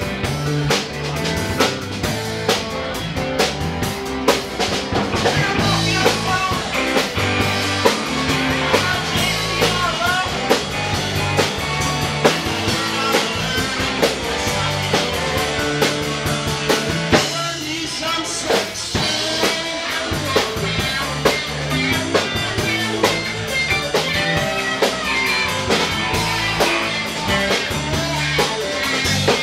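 Live alt-country rock band playing, with drum kit keeping a steady beat under electric and acoustic guitars. The low end drops out briefly a little past the middle.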